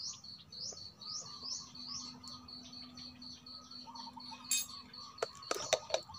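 A small bird chirping repeatedly, short rising chirps about two or three a second, over a steady high whine. A few sharp clicks and knocks near the end.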